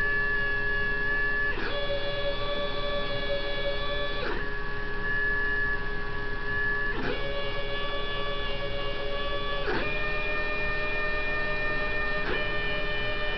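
Stepper motors of a home-built CNC gantry driving its ballscrew axes through a programmed square: a steady whine of several tones that changes pitch about every two and a half seconds as each side of the square begins. Each change comes with a quick sweep as the axis accelerates and decelerates.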